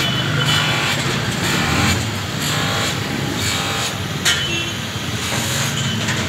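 Street traffic noise from passing motor vehicles, with a few short sharp knocks.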